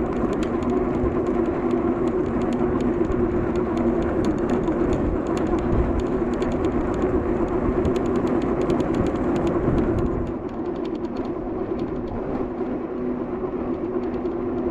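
Riding noise from a Juiced Scrambler e-bike in motion: wind rushing over the action camera's microphone with a steady hum underneath and fine crackling ticks. The rush eases a little about ten seconds in.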